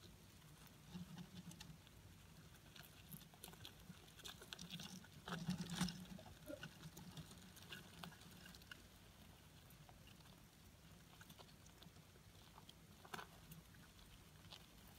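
Dubia cockroach colony crawling and feeding on an orange: faint, irregular ticks and rustles over a low hum, with a denser, louder patch of clicking about five to six seconds in.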